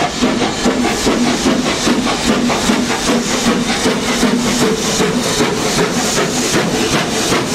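BR Standard Class 4MT two-cylinder 4-6-0 steam locomotive working a train at slow speed: a steady rhythm of exhaust chuffs, about three a second, with hissing steam over a steady low hum.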